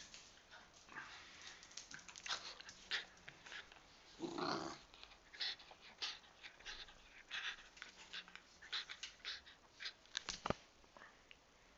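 A Jack Russell terrier playing tug with a rubber toy bone: a run of irregular clicks and scrapes from teeth and claws, with one louder half-second dog sound about four seconds in.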